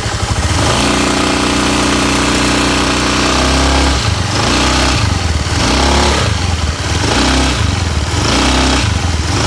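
Honda Beat FI scooter's 110 cc single-cylinder engine revved with the rear wheel loaded, held up for about three seconds and then blipped repeatedly, with a rattle that comes only under load and not at idle. Typical, the mechanic says, of a loose CVT fan bushing rather than the worn CVT bearing it is often blamed on.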